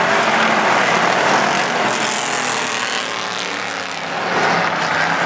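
Stock cars racing around a paved oval: the engines of the pack run together in one steady, loud drone, easing off slightly about four seconds in and swelling again as the cars come round.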